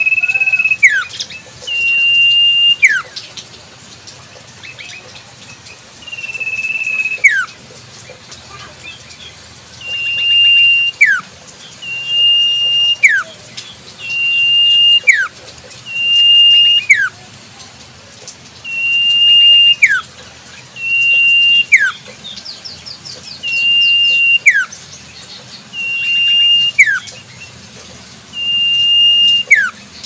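Common iora (cipoh) calling again and again, about every two seconds. Each call is a high, steady whistle held for about a second, then a sharp downward slide.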